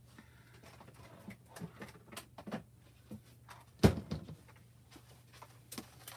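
Objects being handled and rummaged on a desk: scattered light clicks and rustles, with one sharp knock about four seconds in.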